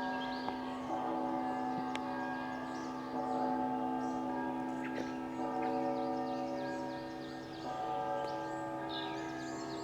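Church bells ringing, struck anew about every two seconds so that their tones ring on and overlap, while small birds chirp and sing throughout.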